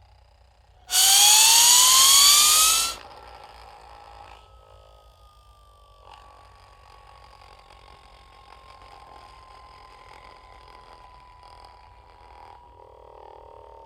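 Cartoon UFO zip-whistle sound effect: about a second in, a loud whistle sweeps upward over a hiss for about two seconds and cuts off, then a faint long whistle slowly falls in pitch.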